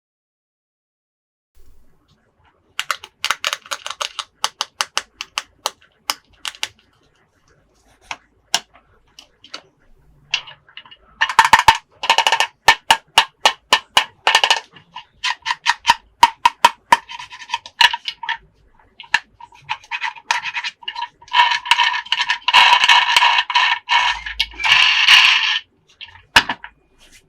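Plastic toy pieces clicking and rattling in quick runs of taps, with denser stretches in the middle and near the end.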